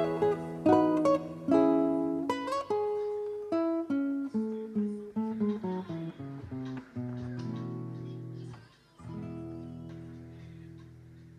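Background music: acoustic guitar picking a descending run of notes, then, after a brief break, a held chord that fades away.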